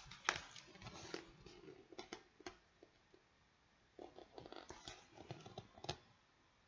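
Faint rustling and light clicks of a picture book's paper pages being turned and the book handled, in two short spells with a pause between.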